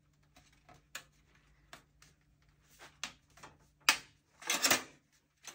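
Thin metal motherboard I/O shield clicking and tapping against the steel case's rear opening as it is pressed in by hand. A string of small ticks, with louder knocks and a short clatter about four seconds in. The shield will not stay seated.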